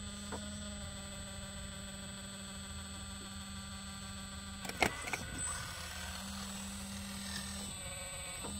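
Scale RC Volvo excavator whining steadily as it works its arm, the tone shifting slightly near the end. About five seconds in comes a sharp knock and a short rush as the bucket's load of sand tips into the dump truck's bed.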